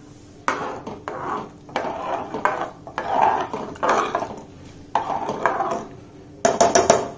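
A steel spoon stirring watery oats and moong dal khichdi in an aluminium pressure cooker, a series of scraping strokes against the pot, with a quick run of clicks near the end.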